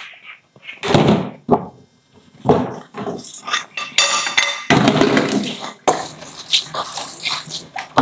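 Dishes being washed under a running kitchen tap in a stainless steel sink: water splashing in short bursts, with knocks and clinks of a bowl and a pot against the sink.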